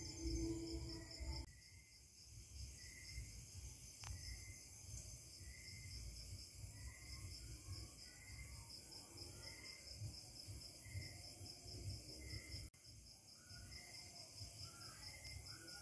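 Faint insects, cricket-like, chirping steadily: a high, evenly pulsing trill with a lower chirp repeating about once a second.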